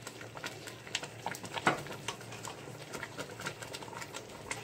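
Thick tomato ketchup simmering in a metal pot, its bubbles bursting in irregular soft pops and clicks, with one louder pop partway through. The sauce has cooked down thick and is almost done.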